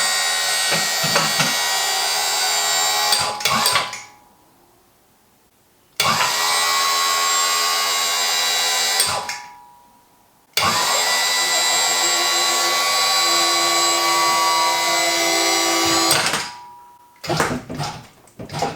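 QuickJack lift's electric hydraulic pump, powered from the car's 12-volt battery, running in three bursts of a few seconds each with short pauses between as it raises the car. A few short knocks follow near the end.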